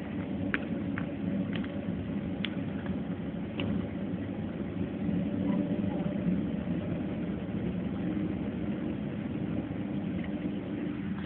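Jet airliner engines heard from inside the passenger cabin: a steady hum and rumble. A few light clicks or rattles come in the first few seconds.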